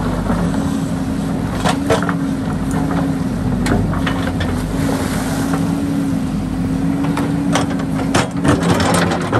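JCB backhoe loader's diesel engine running steadily as the backhoe digs, with scattered knocks and clatter of stones against the bucket as it works through the wet riverbed gravel, the knocks bunching up near the end.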